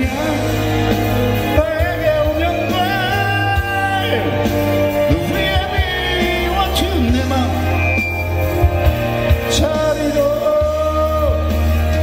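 A man singing a Korean pop song into a microphone over an instrumental backing track with a steady bass line, holding long notes with a wavering vibrato.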